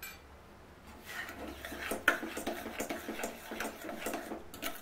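Steel spoon stirring and scraping thick cooked chana dal and sugar inside a stainless steel pressure cooker pot: a quick run of metal clinks and scrapes starting about a second in.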